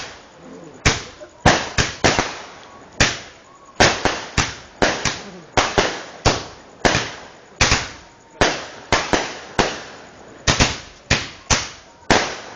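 Fireworks going off in a rapid, irregular series of sharp bangs, about one or two a second, each trailing off in a short echo.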